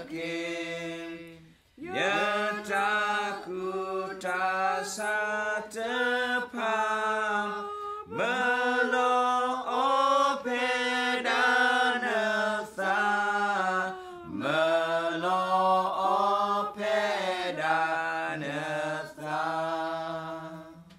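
Two men and a woman singing a hymn together, unaccompanied, in long held notes, with short breaks between phrases about two, eight and fourteen seconds in.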